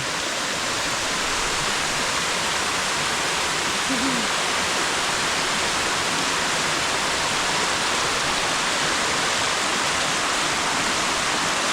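Steady rushing of a tall waterfall pouring into its pool, a constant even hiss of falling water.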